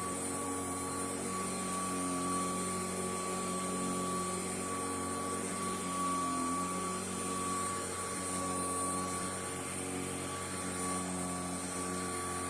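Royal Commercial Model 608 vacuum cleaner running steadily, its motor hum carrying a constant high whine.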